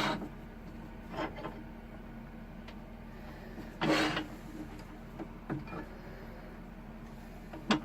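A few light knocks and one brief scrape of parts and tools being handled at a wood lathe, over a steady low hum.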